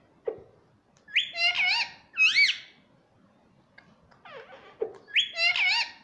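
Indian ringneck parakeet calling: a quick run of short chirping notes followed by a loud rising-then-falling whistle. The phrase comes about a second in and starts again near the end.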